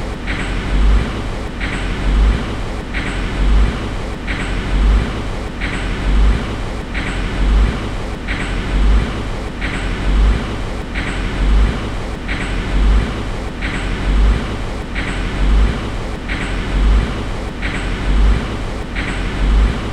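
Chevrolet Spark gasoline engine running with a regular knocking: a low thump about every 1.3 seconds with a lighter sharp click between each, a sign of engine trouble.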